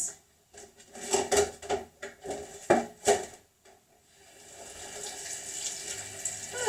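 A few sharp knocks and clicks of kitchen handling, then a steady hiss that starts about four seconds in and keeps going.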